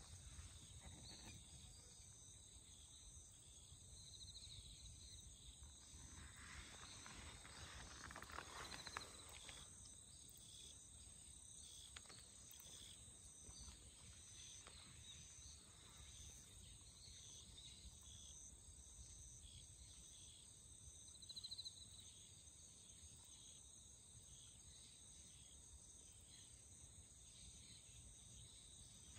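Near silence: faint, steady insect chirring, with a soft rustle about seven to nine seconds in.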